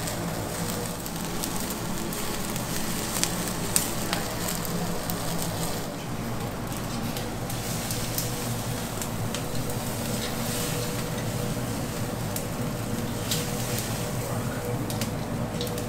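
A huge T-bone steak sizzling in a hot pan, with scattered pops and crackles over a steady low hum.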